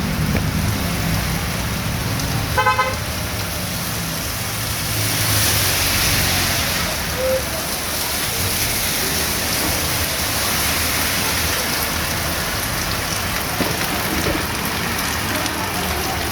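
Heavy rain falling steadily on a street. A vehicle horn gives a short toot about three seconds in. Passing traffic adds a low engine rumble at the start and a swell of tyre hiss on the wet road a little later.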